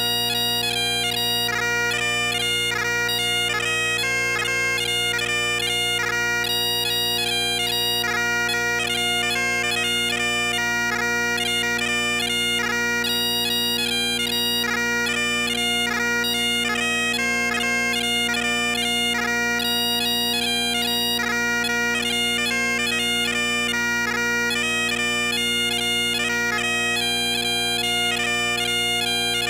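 Great Highland bagpipes playing a tune, the chanter's melody moving over the steady, unbroken drones.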